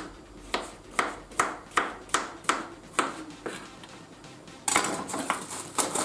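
Kitchen knife chopping through cucumber onto a plastic cutting board: about nine sharp knocks, two to three a second. Near the end the chopping gives way to a steady rustling and crinkling of plastic packaging being handled.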